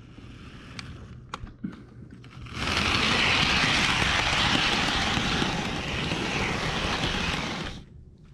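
Bachmann HO-scale Thomas model locomotive running on EZ Track, heard from on board. For about the first two and a half seconds it is a faint whir with a few clicks, then a louder steady rushing whir for about five seconds, which drops away near the end.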